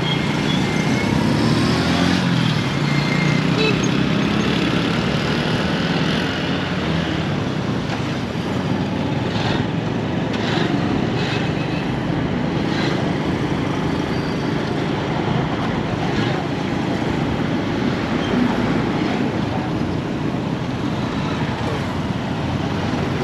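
Steady road traffic noise, cars and other vehicles passing, with a few short clicks or knocks about ten seconds in.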